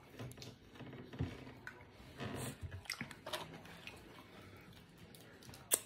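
A person chewing fast food close to the microphone: soft wet mouth sounds with small crunchy clicks, and one sharper click near the end.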